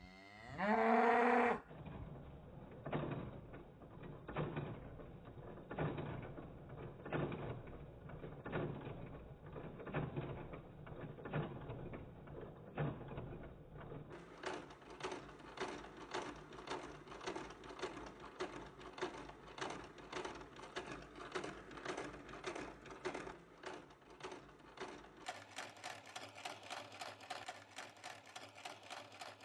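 A short animal call rising slightly in pitch about half a second in, then a rhythmic mechanical clatter that quickens in steps, ending at roughly three to four strokes a second.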